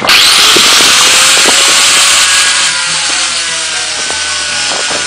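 Handheld power tool switched on and running steadily, with a loud, dense high hiss; a short rising whine as it spins up at the start.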